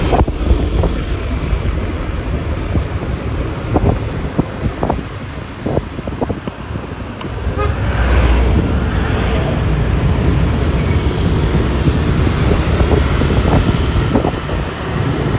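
Road noise on a moving Yamaha Lexi 155 scooter in traffic: wind buffeting the microphone over a low rumble, with a louder passing vehicle about eight seconds in.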